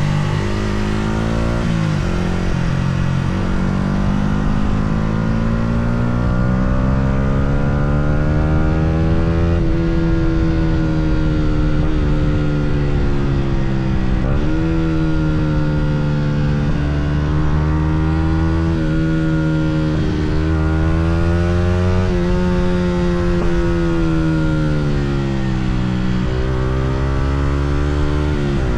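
Yamaha R125's 125cc single-cylinder four-stroke engine under way. Its note climbs steadily as the bike accelerates, then drops sharply at each gear change, several times over.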